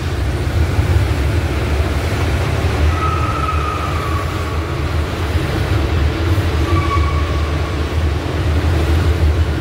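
Steady low rumble of a truck's engine and tyres heard from inside the cab while driving through a road tunnel, which makes it sound like an underground train. There are two faint high whines, about three seconds in and again about seven seconds in.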